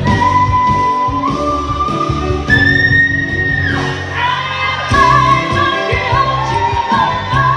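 Woman singing a show tune solo over instrumental accompaniment, holding long notes that climb to a very high sustained note about two and a half seconds in, then starting a new phrase.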